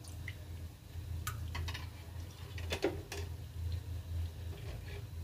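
A steel spoon clinking against metal several times while cooking oil is spooned into an empty kadhai, the loudest clink about three seconds in, over a low steady hum.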